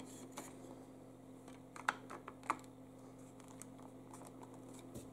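Light scattered clicks and taps of hard plastic as the two halves of a Remington electric pole saw's handle housing are fitted and pressed together, the sharpest about two seconds in. A faint steady hum runs underneath.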